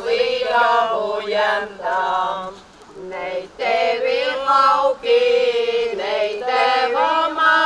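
Latvian women's folk ensemble singing a traditional song unaccompanied, in long held phrases, with a short breath pause about three seconds in.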